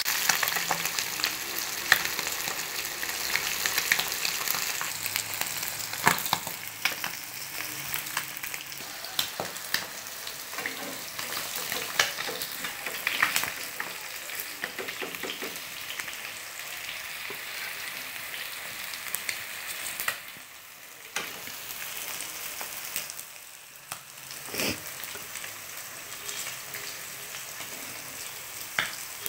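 River-fish steaks shallow-frying in hot oil in a non-stick pan: a steady sizzle dotted with frequent sharp spatter pops. The sizzle briefly drops twice in the last third.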